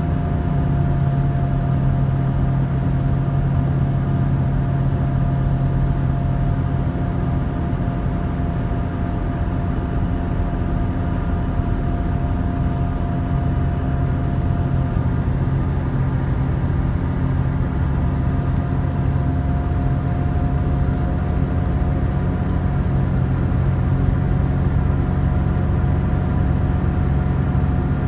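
Car cabin noise while cruising steadily on a highway: engine hum and tyre roar on the road surface, heard from inside the car. The sound is even and unchanging.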